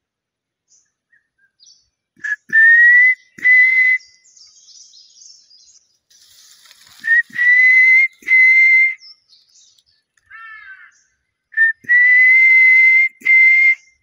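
A person whistling close to the microphone, three times: each time a short note, then two long, slightly rising, breathy whistles. Faint bird calls answer in the pauses between them.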